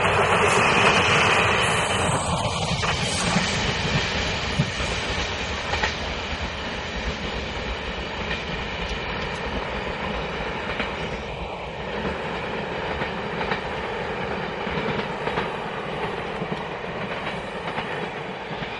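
Chu-kuang express passenger coaches rolling past on the rails, the wheels clattering over rail joints with a few sharp clicks. Loudest in the first few seconds, then a steady rolling noise that slowly fades as the train draws away.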